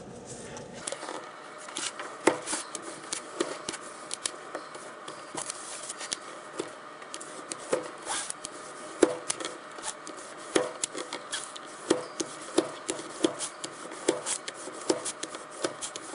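Plastic ballpoint pen rubbed hard over metal sectors stuck on an acrylic disc, burnishing them flat: a long run of irregular scratchy strokes and clicks.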